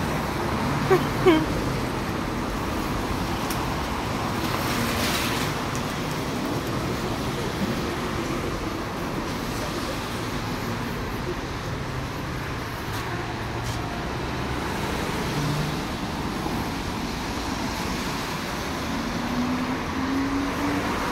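Steady hiss of a rain-soaked city street: rain and traffic on wet roads, at an even level throughout.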